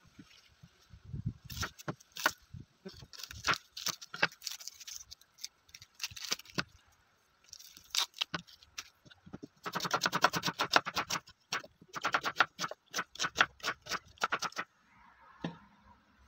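Kitchen knife cutting an onion on a bamboo cutting board: scattered single knocks of the blade on the wood at first, then two runs of rapid chopping, many strokes a second, in the second half.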